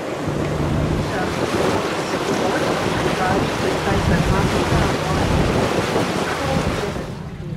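Tour boat under way: its motor running, with water rushing past the hull and wind buffeting the microphone. The noise drops off suddenly near the end.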